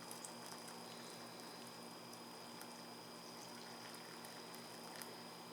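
Hot tea being poured from a pot into a cup: a faint, steady liquid pour.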